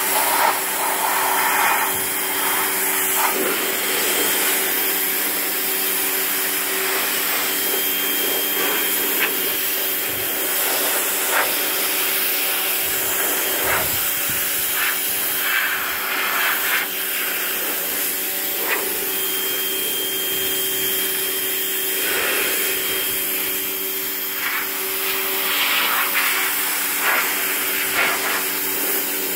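Small electric pressure washer running steadily, its motor-driven pump humming under the hiss of the water jet striking sheet-metal panels and concrete.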